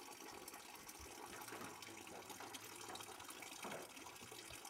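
Faint, steady rush of a stream's running water.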